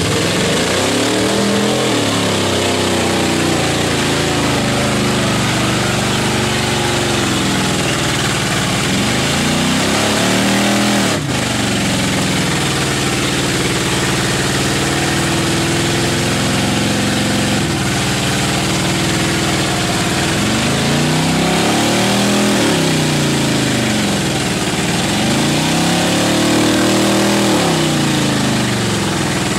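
Mud-bogging pickup truck's engine revving hard and dropping back, over and over, as the truck churns through deep mud. The pitch climbs and falls every few seconds, with several quick revs in a row near the start and again in the last third.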